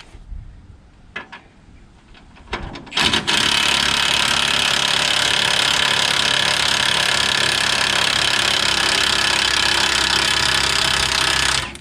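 A power tool runs loud and steady for about eight seconds, starting abruptly about three seconds in and cutting off near the end, after a few light knocks of tools being handled.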